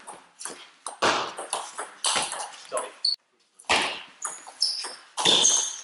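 Table tennis rally: the ball clicking off bats and table in quick, irregular succession, each hit echoing in the sports hall, with a few short high squeaks in the second half.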